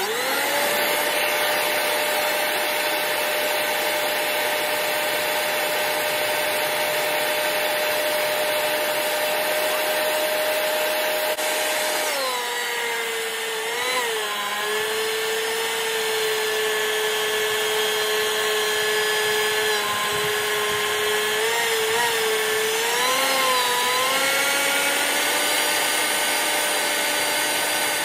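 DeWalt portable thickness planer running as it planes a wooden post: a steady, loud motor whine with the rush of the cutter head. The pitch drops about halfway through, wavers, and rises again near the end.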